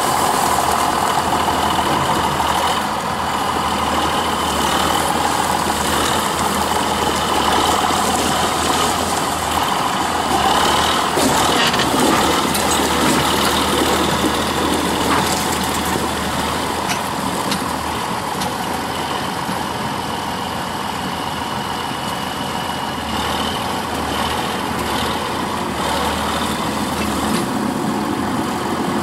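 A John Deere 7510 tractor's 6068 six-cylinder diesel running steadily as the tractor drives slowly in a turn, with a steady high whine over the engine. The tractor is listed as having rear drive-train noise.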